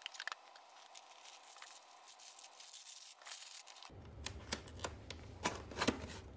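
Corrugated cardboard mailer box being folded shut by hand: faint scraping and rustling of the flaps, with a few sharp cardboard ticks and clicks in the last couple of seconds as the flaps are pressed and tucked in.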